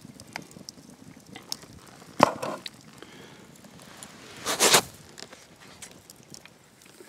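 Campfire crackling with scattered small pops, and two louder short knocks or scrapes, about two seconds and four and a half seconds in.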